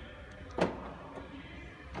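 A single sharp click about half a second in, with another click starting right at the end.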